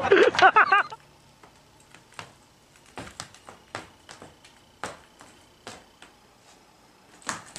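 Voices for about the first second, then a dog wearing sneakers stepping on a hardwood floor: irregular light taps and scuffs, about two a second.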